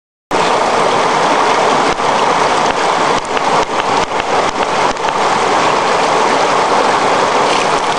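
River water rushing steadily over stones, cutting in suddenly just after the start. A few brief knocks sound between about two and five seconds in.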